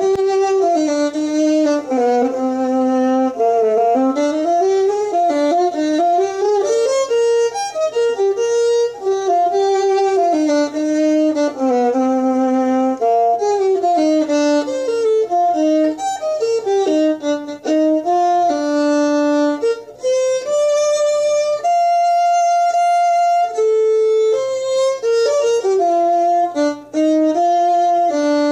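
Solo violin playing a folk tune, much of the melody bowed as two notes at once, with a long held note a little past twenty seconds in.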